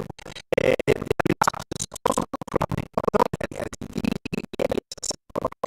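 A voice talking, broken up by rapid audio dropouts into a choppy, scratchy stutter that makes the words unintelligible.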